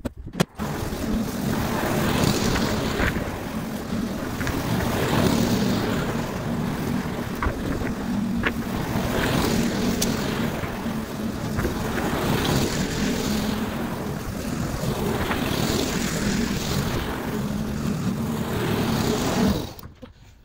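Petrol rotary lawn mower engine, a 15-year-old Rover Regal, running steadily while mowing, the sound swelling and easing every few seconds. It stops abruptly near the end.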